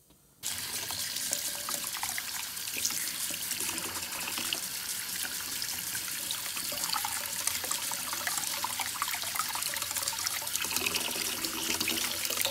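Tap water running steadily into a sink, splashing over a freshly dyed folding knife held under it to rinse off the black dye. It starts suddenly about half a second in.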